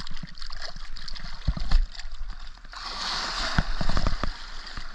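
Shallow seawater sloshing and splashing as hands scoop wet sand and tuatua clams from the seabed, with small clicks and knocks from the shells and the digging. A couple of low thumps come a bit over a second in, and a longer burst of splashing follows about three seconds in.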